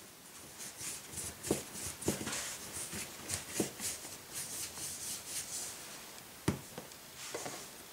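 Kitchen prep handling: a run of short, soft rubbing strokes, with a few light knocks on a work surface, as the flatbread dough is handled.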